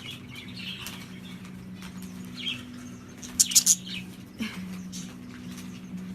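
A bird flapping its wings in short flurries, with brief chirps, over a steady low hum; the loudest flurry of flaps comes about three and a half seconds in.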